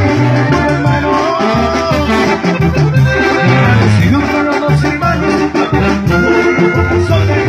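Live Mexican band music with accordion and brass over rhythmic bass notes in an instrumental passage.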